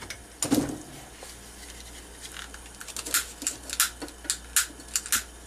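A single knock, then a run of sharp, evenly repeated clicks, about three a second, from a gas grill's igniter being worked to light the burner.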